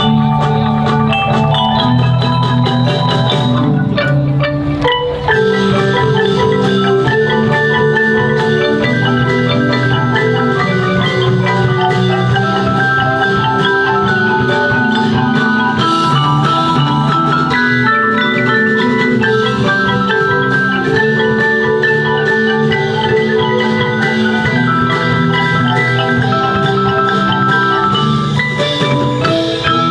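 Percussion ensemble playing a tune on marimba and other mallet instruments, with a steady bass line under quick melodic notes; the music thins briefly about five seconds in.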